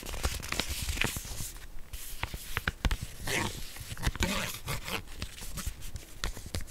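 Long fingernails tapping and scratching on a sheet-mask pouch, the packet crinkling under the fingers: a fast, uneven run of sharp taps with rustling in between.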